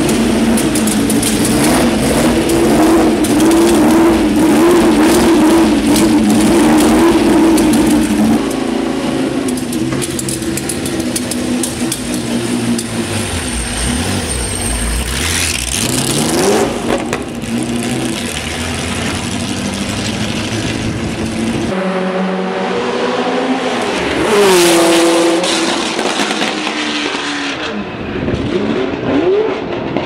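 Porsche 908/3's three-litre flat-eight racing engine, first running at a wavering raised idle while the car stands still, with a couple of quick rev blips about halfway through. Later the car drives on track, its revs rising and falling as it accelerates and changes gear.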